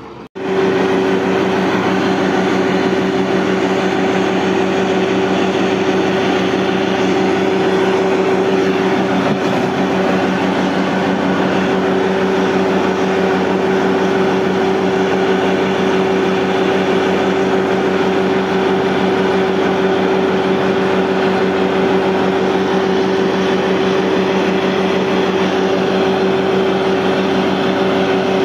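Truck-mounted borewell drilling rig running while boring a tubewell: a loud, even mechanical drone with a steady low hum. It starts abruptly just after the beginning and holds without change.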